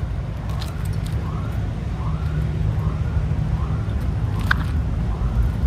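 Steady low rumble of road traffic, with a faint rising-and-falling tone repeating about twice a second and a few sharp clicks.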